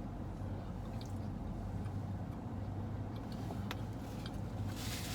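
Soft chewing and mouth sounds of people eating a soft chocolate chip cookie, with a few faint clicks, over a steady low hum; a rustle starts near the end.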